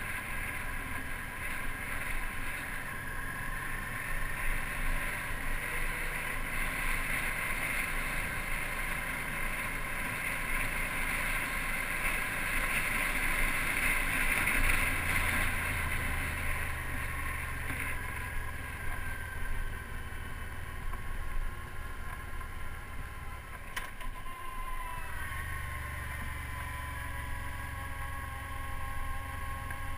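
Motorcycle engine running with wind rushing over the microphone as the bike rides downhill. About two-thirds of the way through, a single click is followed by the engine note rising slightly.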